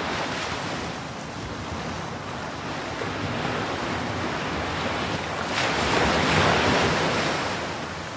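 Sea waves washing with wind, a steady rush that swells louder about five and a half seconds in and then eases off.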